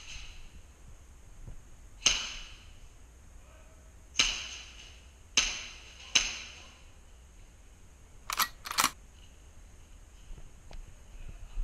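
Airsoft guns firing single shots: four sharp pops spread over a few seconds, then two quicker, thinner cracks in close succession.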